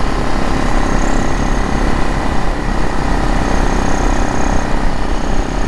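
Supermoto motorcycle engine running steadily at a constant speed while being ridden.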